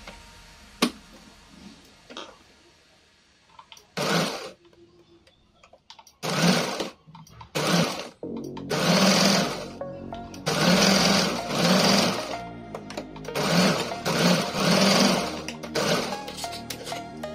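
Usha Allure electric sewing machine stitching through fabric in a series of stop-start runs. The runs begin about four seconds in and grow longer in the second half.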